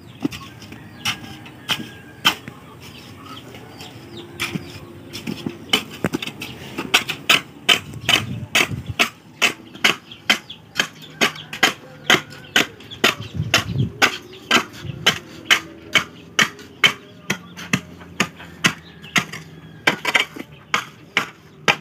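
Steel shovel blade chopped repeatedly into hard, coal-packed ground, sharp strikes at about two a second from about six seconds in, with only a few scattered strikes before that.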